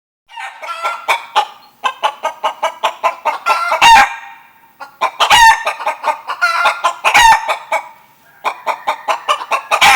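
Poultry calling: a rapid run of clucks, with a few louder, drawn-out calls about four, five and a half and seven seconds in, and a short lull near the end.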